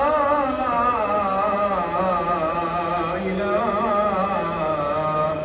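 A solo voice chanting a slow melismatic melody, holding long notes that waver and turn in ornamented runs.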